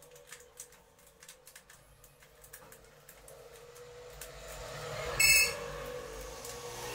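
Light clicks and rubbing of hands and a screwdriver working on an LED TV's reflector sheet and metal backplate, over a faint steady hum. About five seconds in, a brief, loud, shrill squeak stands out.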